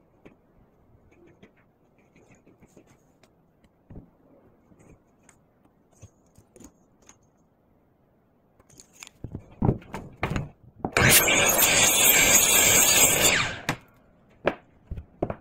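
Faint scattered knocks and clicks of wood being handled, then a few sharper knocks, then a loud, steady cutting sound from a woodworking tool for nearly three seconds, stopping fairly suddenly.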